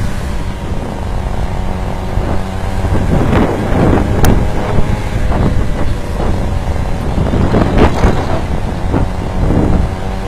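Small gasoline engine of a stand-up scooter running steadily at cruising speed, with wind rushing over the microphone that swells louder twice.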